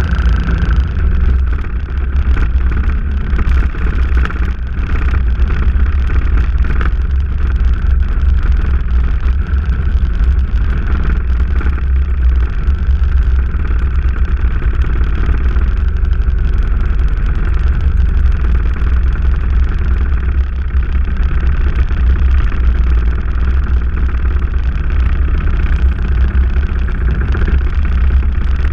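Motorcycle riding at road speed: a steady engine note under heavy wind rumble on the bike-mounted camera's microphone.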